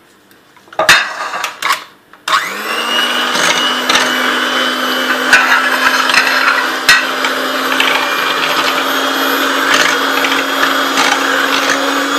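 Electric hand mixer whipping cream in a glass bowl: a few knocks and clinks, then about two seconds in the motor starts and runs steadily, its hum creeping slightly higher in pitch, with occasional clicks from the beaters.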